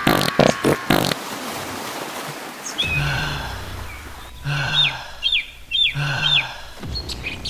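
Dinosaur creature-call sound effects: groups of short chirping calls over a low hum, starting about three seconds in and repeating every second or so, after a rhythmic pulsing sound that ends about a second in.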